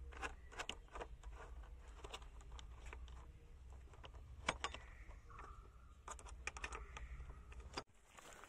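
Faint, irregular small clicks and taps of a bolt and nut being handled and turned by hand on a headlight-protector mounting bracket.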